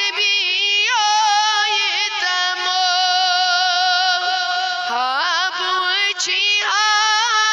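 A single high voice singing a Kashmiri naat with no instruments, holding long notes and sliding through ornamented runs. A new phrase starts about five seconds in.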